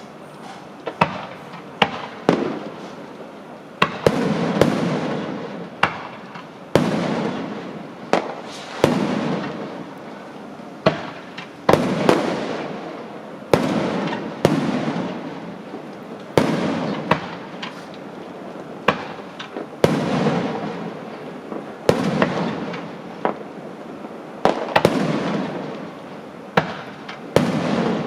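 Fireworks going off in quick succession: sharp bangs every second or two, each followed by a fading crackle and rumble.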